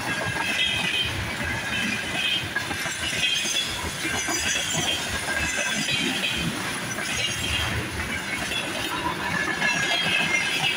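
Freight train of empty flat wagons rolling past close by: steady rumble of steel wheels on rail with rapid clickety-clack, and a high squeal that comes and goes.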